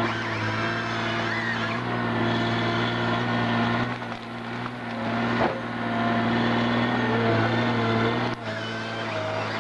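Heavy machinery engine running steadily under load, with a low hum and whining tones that waver in pitch over it.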